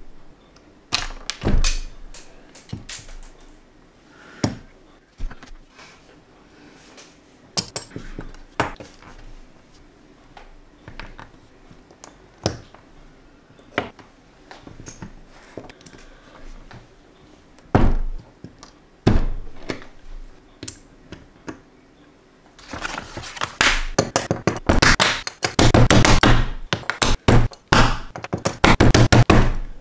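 Small plastic LEGO pieces tapped, clicked and pressed together with metal tweezers, in scattered knocks and clicks. About two-thirds of the way in this turns into a dense run of loud thunks as pieces are pushed down with a fist against the table.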